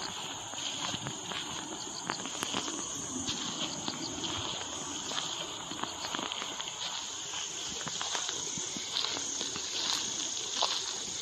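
A steady high-pitched chorus of insects, with the irregular footsteps of someone walking along a path.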